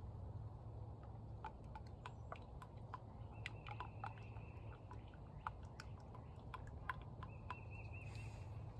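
Faint, irregular small clicks and ticks of a plastic oil bottle and funnel while motor oil is poured into a lawnmower engine, over a low steady background hum.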